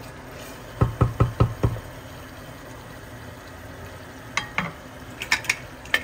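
Meat frying in a pot with a steady, faint sizzle. A spoon knocks against the pot five times in quick succession about a second in, and lighter utensil clicks follow near the end.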